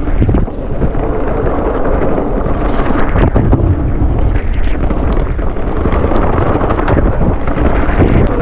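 Wind rushing over the camera microphone while a mountain bike is ridden along a wet trail, with tyre noise and sharp knocks now and then.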